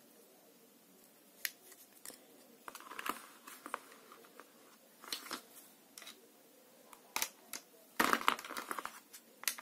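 Hard plastic toy guns and an action figure being handled on a tabletop: scattered light clicks and knocks of plastic, with a busier patch of rattling near the end.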